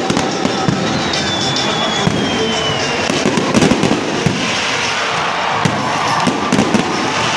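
Heavy rain falling, a dense steady crackle of drops, with a crowd's voices mixed in.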